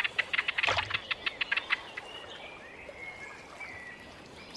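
Wetland birds calling: a fast run of short, high chirps, then a few thin, gliding whistles. A single soft thud comes under the chirps early in the run.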